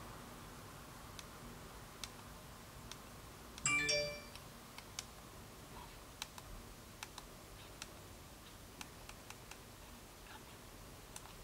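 Small plastic buttons on the back of a Kodak Pixpro FZ43 compact digital camera clicking again and again as its menus are stepped through. About four seconds in, a short electronic chime sounds.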